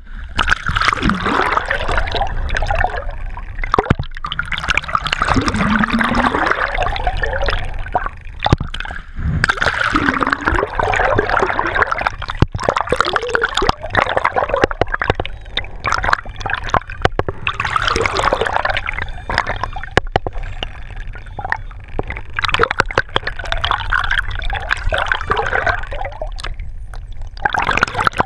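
Water rushing and gurgling around an underwater GoPro housing moving with a sailing yacht, rising and falling in surges with many short splashy clicks as the camera breaks the surface.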